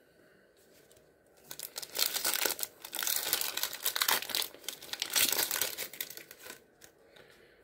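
The wrapper of an Absolute Football trading-card pack being torn open and crinkled: a dense crackling that starts about a second and a half in and dies away near the end.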